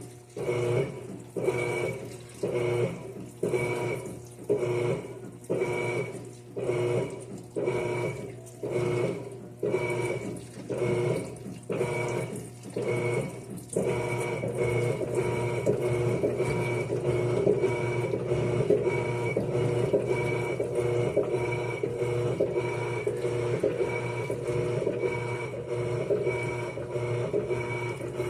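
Electrolux washing machine running with water: a hum that pulses on and off about once a second, then runs steadily from about halfway through.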